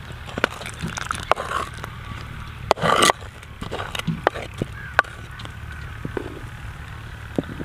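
Pouring a thin wheat-porridge slurry from a clay bowl into a clay pot: irregular clicks and knocks of the bowl and a wooden spoon against the clay, with a short louder rush of noise about three seconds in, then the wooden spoon stirring the liquid.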